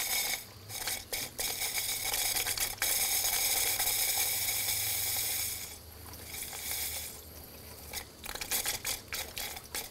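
Air and water sputtering and hissing out of a GrowoniX GX600 reverse osmosis unit's drain tubing as trapped air is purged while the filter housings fill at half water pressure. A steady hiss for about the first five seconds, then quieter crackling and spitting.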